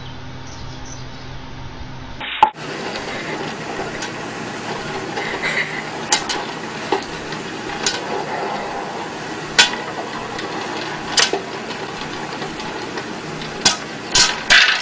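Countertop popcorn popper at work: a steady sizzling hiss with single kernels popping every second or two, the pops coming faster near the end. A low steady hum fills the first couple of seconds.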